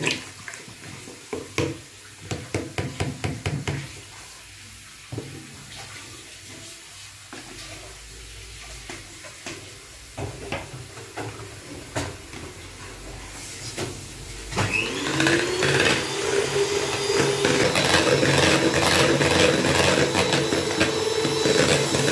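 Liquid cream poured and a carton handled, with a quick run of light clicks. About two-thirds of the way in, an electric hand mixer is switched on; its whine rises as the motor spins up, then it runs steadily as the beaters whip the cream in a bowl.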